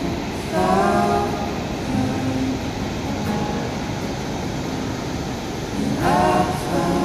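Background song: a singing voice comes in twice, about half a second in and again near the end, with held notes between, over a steady rushing noise.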